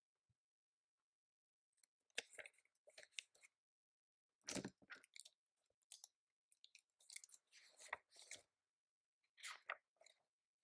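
Keyboard typing in short bursts of rapid keystroke clicks, four or five runs separated by pauses of about a second.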